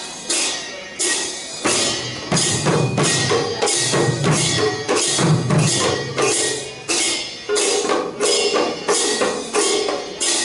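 Khol barrel drums and large hand cymbals of an Assamese Gayan-Bayan ensemble playing a steady beat. The cymbals clash at even intervals, and the deep drum strokes are loudest in the middle of the passage.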